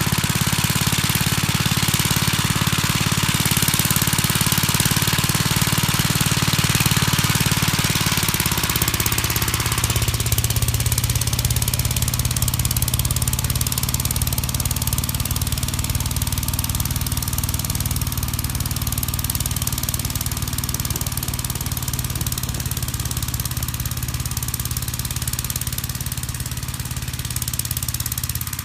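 1959 Gravely Model L's single-cylinder engine running with its snow blower, a steady hiss over the engine. About ten seconds in the engine note drops lower and the hiss fades.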